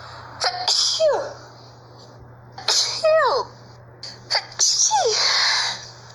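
A person sneezing three times in a row, about two seconds apart: each sneeze is a sudden burst of breath ending in a voiced cry that falls in pitch, the third a little longer than the others.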